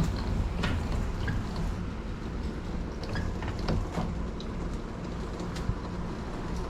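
Rain falling, with scattered drips and ticks over a steady low rumble.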